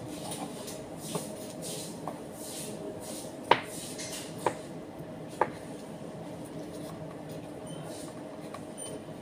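Plastic food containers and cheese being handled: soft rustling, then about five sharp plastic knocks, the loudest about three and a half seconds in, over a steady background hum.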